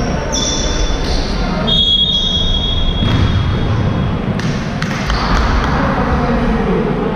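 Basketball game in an echoing sports hall: a ball bouncing, players' shoes squeaking on the court now and then, and players' voices.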